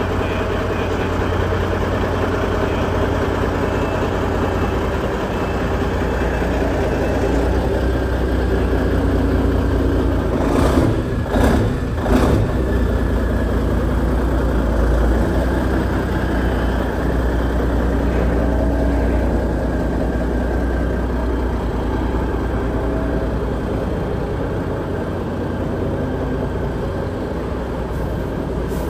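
Peterbilt semi truck's diesel engine running at low idle with a steady low rumble while the truck creeps slowly forward. A few short sharp sounds break in about ten to twelve seconds in.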